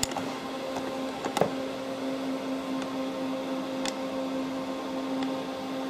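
Steady low electrical hum of a workshop, with a couple of faint clicks about one and a half and four seconds in.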